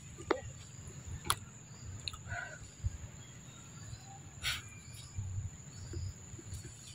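Steady high-pitched drone of insects in the forest, with a few sharp clicks.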